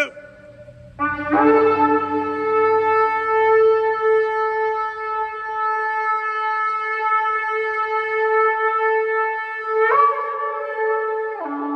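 Long spiral Yemenite shofar blown: after a short pause, one long steady blast held for about nine seconds. Near the end the note flips briefly higher, then drops to a lower pitch.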